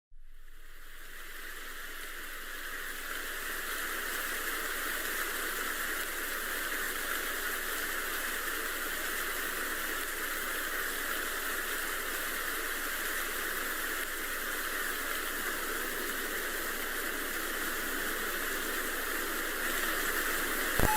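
Steady hiss of static, fading up out of silence over the first few seconds and then holding level.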